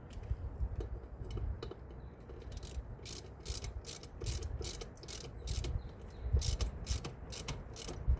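Ratchet wrench clicking in short strokes, about two clicks a second from a couple of seconds in, as the torque converter drain plugs are run back in.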